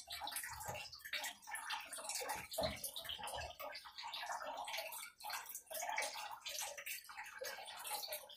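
Small paintbrush dabbing and stroking white vinyl paint onto a wooden cutting board: a run of short, irregular scratchy brush sounds, several a second.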